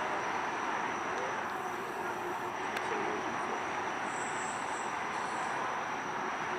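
A train rolling past with a steady rushing rumble of steel wheels on the rails.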